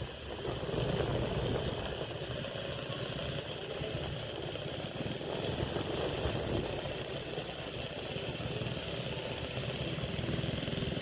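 Steady engine rumble with a constant high hiss above it.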